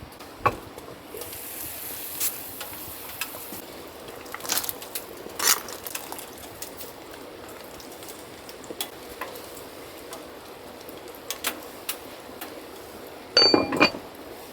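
Scattered clicks and knocks of cookware and utensils being handled, with a brief hiss early on and a cluster of metallic clinks that ring briefly near the end.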